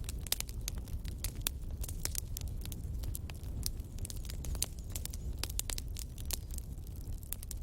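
Burning firewood crackling and popping, with many sharp, irregular snaps over a steady low rumble of the fire.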